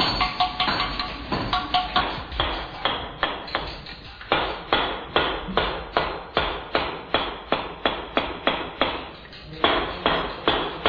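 Hammer blows on a stonemason's chisel cutting into a stone block: a steady run of sharp knocks, about three a second, with a brief pause near the end.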